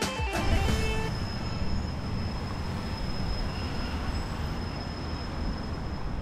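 Steady low rumble of street traffic and a car rolling slowly up, with a faint, steady high-pitched tone above it. Music cuts off about a second in.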